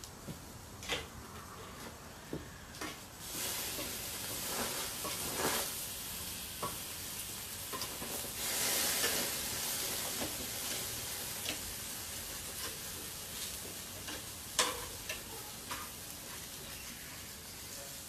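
Sliced vegetables sizzling hard on a hot barbecue grill, the sizzle swelling for several seconds in the middle as they are turned. Scattered sharp clicks of metal tongs against the grill, the loudest about three-quarters through.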